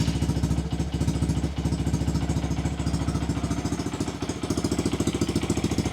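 Honda Monkey 125's single-cylinder engine idling steadily through a Scorpion titanium full exhaust with the baffle in, moments after starting: an even, quite loud exhaust beat.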